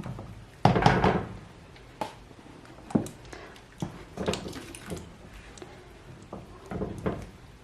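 Kitchen clatter: a loud knock about a second in, then a handful of lighter knocks and clinks of utensils against a pot.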